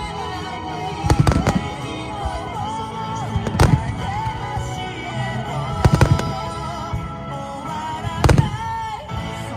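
Fireworks bursting in four clusters of loud cracks and booms, roughly every two and a half seconds, over music with a wavering melody.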